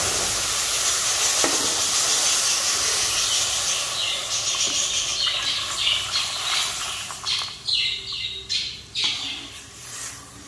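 Boiled milk poured onto vermicelli fried in hot ghee in a kadhai, giving a loud, steady sizzling hiss. It slowly dies down and breaks into patchy sputters over the second half.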